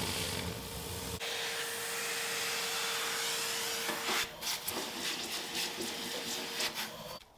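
Bench polishing machine running a loose cotton buffing wheel, a steady whir and hiss with a steady hum. From about four seconds in comes uneven rubbing as the silver watch case is pressed against the spinning buff.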